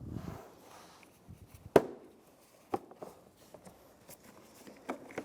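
Plastic clicks and snaps as a Chevrolet Cobalt's interior door handle is released at its tab and worked out of the door, with one sharp snap a little under two seconds in and lighter clicks after.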